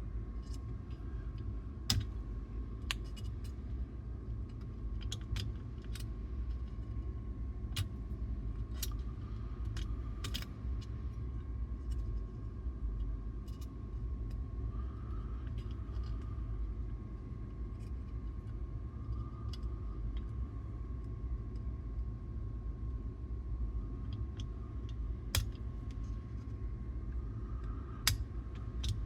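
Scattered small clicks and taps of tools and small parts as the Pioneer T-838 cassette deck's tape transport mechanism is taken apart again by hand, over a steady low hum and a faint steady high tone.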